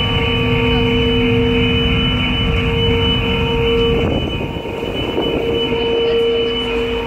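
Ferry machinery droning on an enclosed car deck: a loud, steady low rumble with several steady humming tones above it. About four seconds in, the hum dips and the rumble turns rougher.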